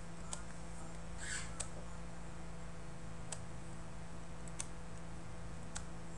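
A few faint, scattered computer mouse clicks over a steady low hum from the recording setup.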